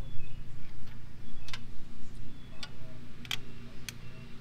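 Sharp, separate metallic clicks, about five over a few seconds, as hydraulic lifters are pulled out of the lifter valley of a Ford 351W V8 block. A steady low hum runs underneath.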